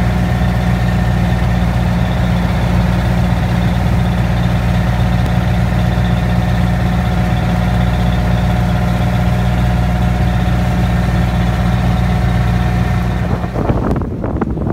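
Boat engine running steadily, a low, even drone with a steady higher hum above it, heard from on board. It breaks off about a second before the end.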